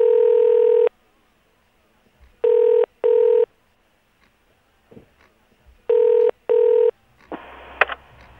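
Telephone ringback tone heard down a phone line: a longer tone, then two double rings, each pair of short tones about three seconds apart. Near the end the line opens into hiss with a sharp click, as the call is picked up.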